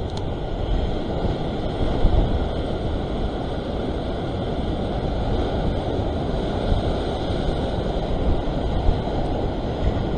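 Rough surf surging and washing over a rock ledge, a steady rushing noise, with wind buffeting the microphone.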